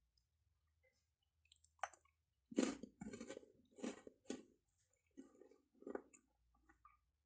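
A person chewing Cadbury chocolate close to the microphone. After a near-silent start and one click, several seconds of chewing begin about two and a half seconds in, loudest at the start, then trail off into a few faint mouth sounds.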